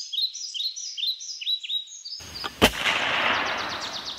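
A songbird repeating short falling chirps. A little past halfway a rushing noise starts, with a single sharp bang in it, and the noise fades over about a second and a half while the chirping goes on faintly.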